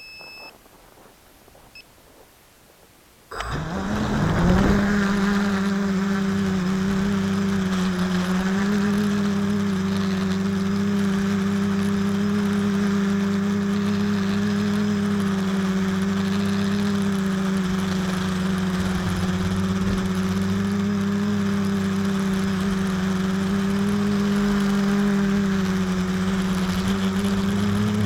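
Quadcopter's electric motors and propellers spinning up suddenly about three seconds in, then running at a steady speed with an even, pitched buzzing drone. Two short high beeps sound in the quiet before the start.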